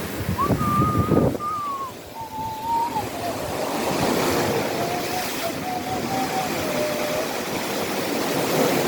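Waves washing and wind buffeting the microphone, heaviest in the first second and a half, with a small boat's outboard motor whining over the surf, its pitch dropping in steps over several seconds.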